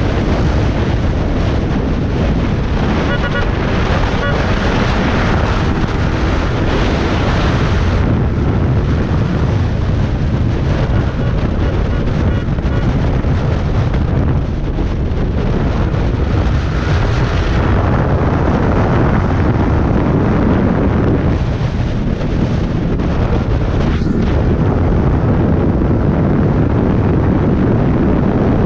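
Loud, steady wind buffeting on the microphone from riding a Yamaha R15 motorcycle at about 100 to 118 km/h, with the bike's single-cylinder engine running underneath.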